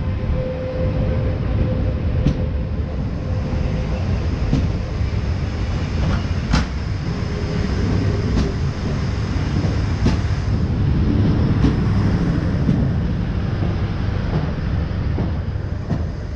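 Renfe Trenhotel sleeper train rolling slowly past at close range as it pulls out: a steady heavy rumble of wheels on rail with a sharp click every second or two. A steady hum at the start fades out about four seconds in.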